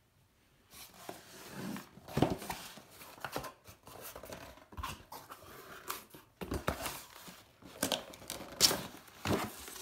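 A cardboard shipping box torn open along its tear strip, then a boxed laptop slid out against the cardboard: a run of irregular rustles, scrapes and knocks, loudest about two seconds in and near the end.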